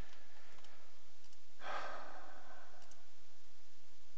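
A person sighing: one long breathy exhale into a close microphone starting about a second and a half in, with a few faint mouse clicks.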